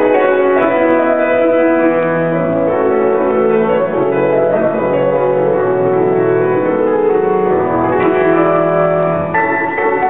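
Concert grand piano played solo: a dense, ringing run of notes in the middle and upper range, with low bass notes coming in about two seconds in.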